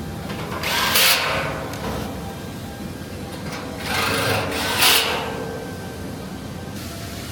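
A power tool running in two bursts, about a second in and again around four to five seconds in, over a steady low workshop hum.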